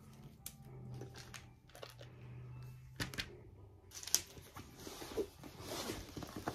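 Paper wrapping rustling and crinkling as a rolled diamond painting canvas is unrolled by hand, starting about three seconds in with sharp little crackles. Before that, a faint low hum and a few light taps.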